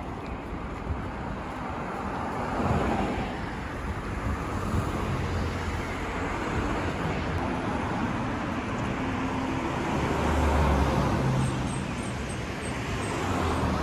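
Street traffic: cars passing on the road alongside, with louder pass-bys about three seconds in and again around ten to eleven seconds in, the second with a heavier low rumble.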